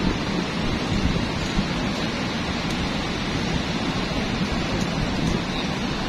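Surf breaking and washing up a sandy beach: a steady rushing noise, with wind rumbling on the microphone.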